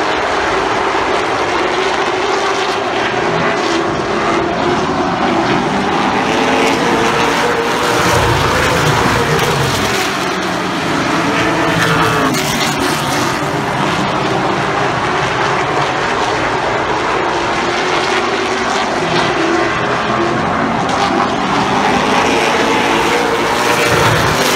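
Several stock car engines running at racing speed around a short oval, their pitch rising and falling as the cars go through the turns and down the straights. Near the end a car passes close and the sound peaks.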